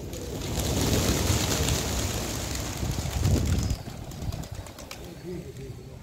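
A flock of domestic pigeons taking off together: a loud clatter of many wings for about three seconds that drops away suddenly near the four-second mark.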